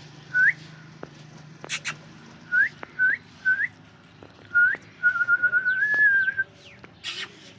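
A person whistling short rising notes, five of them spaced about half a second to a second apart, then a wavering, trilled whistle lasting about a second and a half. Two brief hissing rustles fall in between, one early and one near the end.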